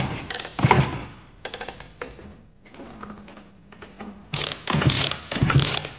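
Honda NSR250 P3 two-stroke engine being kicked over on its kick-starter for a compression test, with a gauge screwed into the spark-plug hole. There are several clattering kick strokes, the last two in quick succession near the end.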